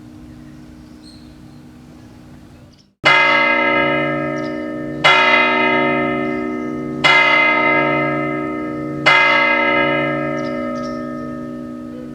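Tower clock bell striking the hour four times, the strikes about two seconds apart, each ringing on and fading. Before the first strike, the faint hum of a previous stroke dies away and cuts off.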